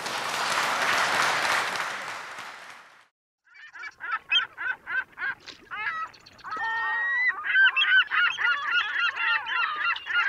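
A burst of rushing noise that cuts off abruptly about three seconds in, then, after a short gap, a flock of birds calling: many short, rapid calls that crowd together and grow denser toward the end.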